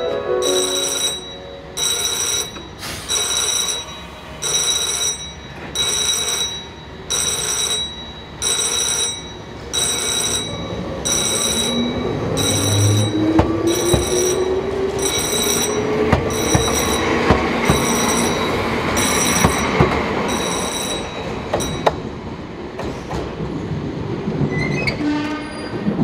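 Electric-bell (denshō-type) railway crossing bell ringing with even, slow strokes about once a second, stopping about four-fifths of the way through. Under it, an electric train pulls away and passes: its motor whine rises steadily in pitch, and its wheels click over the rail joints.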